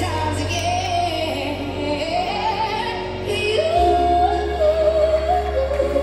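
Music with a woman singing a melody over a held bass note; the bass steps down to a lower note a little before four seconds in.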